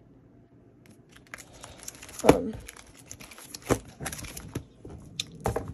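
Plastic pocket pages of a ring binder crinkling and rustling as they are turned, with several sharper snaps; the loudest comes about two seconds in.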